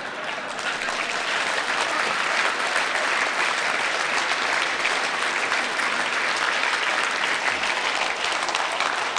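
Audience applauding: many hands clapping in a dense, even patter that swells over the first couple of seconds and then holds steady.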